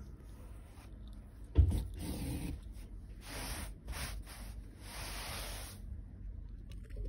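Wool yarn drawn through the woven edge of a kilim during hand-stitched repair: several scratchy rubbing pulls of thread through the weave, the last one longer, after a dull thump about one and a half seconds in.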